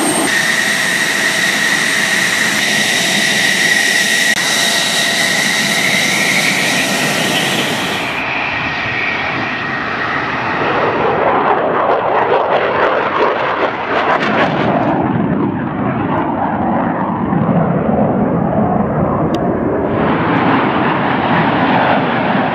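Military jet engines: a steady high whine over a rushing hum from F-16 fighters running on the ground, then, after a cut at about 8 seconds, the rushing noise of fighter jets flying low past, swelling about halfway through and again after a further cut near the end.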